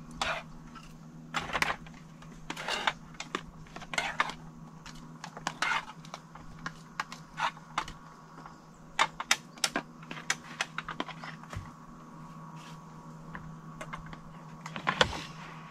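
Cutlery clinking and scraping against plates and pots during a meal: a series of short scrapes, then a run of quick irregular clicks about halfway through, over a steady low hum.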